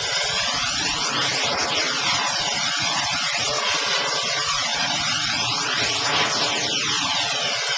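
Loud, steady rushing of a fast flooded river as a log-laden truck fords it, with a sweeping, whooshing swirl running through the noise.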